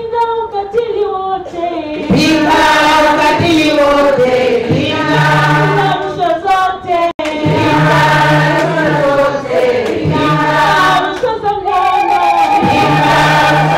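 A group of voices singing a song together in chorus, in long held phrases.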